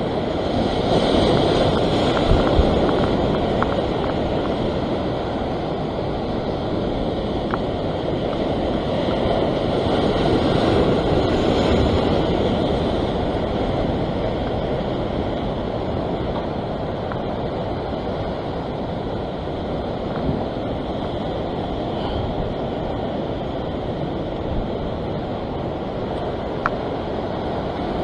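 Ocean surf breaking and washing over sandstone rocks, a steady rushing wash that swells twice, near the start and again about ten seconds in, with wind noise on the microphone.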